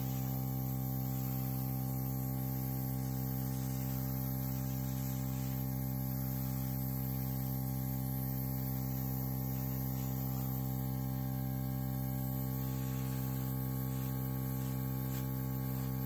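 Small electric air compressor running steadily, a constant even hum with a faint hiss of air, feeding an airbrush that blows paint across a canvas.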